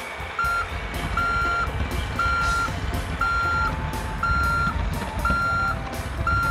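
Heavy-vehicle backup alarm sound effect, seven even beeps about one a second, over a low engine rumble.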